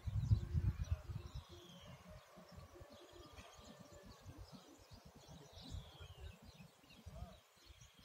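Wild birds singing, with a few short descending whistled notes, over a low rumble on the microphone that dies away after about the first second and a half.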